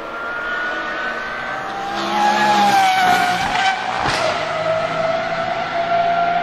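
Pagani Huayra R's naturally aspirated V12 at high revs on a race track: a loud, high, steady engine note that climbs slightly and peaks about two to three seconds in, then holds as the car pulls away.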